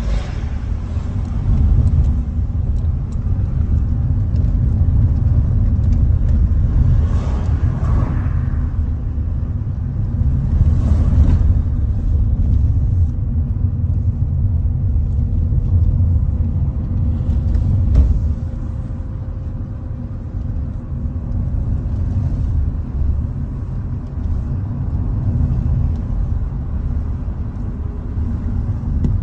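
Car driving along, heard from inside the cabin: a steady low rumble of engine and road noise, with two brief louder swells of noise about seven and eleven seconds in, easing off a little after about eighteen seconds.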